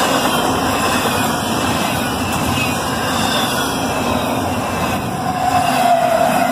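Double-stack intermodal freight train rolling past at close range, with the loud, steady noise of steel wheels on the rails. Near the end a whine slides slightly down in pitch as a mid-train diesel locomotive goes by.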